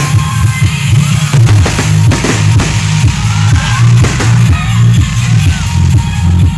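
Loud music with a heavy, rhythmic bass and drum beat.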